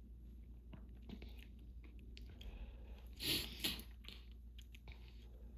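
A person with an allergy-irritated nose sniffling and rubbing it, making small scattered clicks, with two quick hard sniffs about three seconds in.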